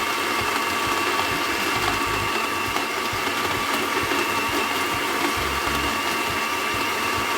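Blender running at a steady speed, chopping coconut and dates into coconut milk: an even motor whine over the churning of the contents.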